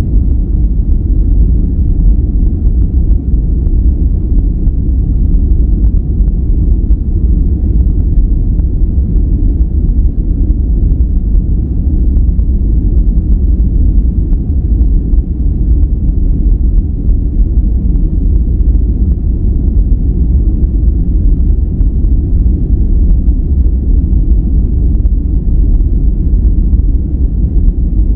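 Steady generated noise for sleep and relaxation, deep and rumbling with no highs, unchanging throughout.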